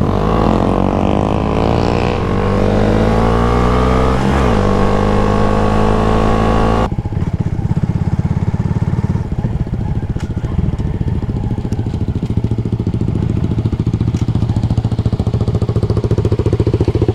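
2022 Honda Grom's single-cylinder engine running under way, its pitch rising and falling with throttle and gear changes, with a clear drop a little after four seconds in. About seven seconds in the sound changes abruptly to a lower, steady putter with its firing pulses plainly heard.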